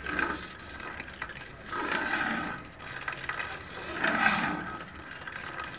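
A kukri blade being sharpened by hand: three long scraping strokes along the steel edge, about two seconds apart.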